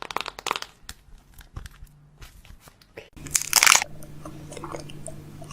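Crunching, as of food being bitten and chewed: a quick run of crackling clicks, then a short loud rush of noise about three seconds in, followed by a steady low hum with scattered small ticks.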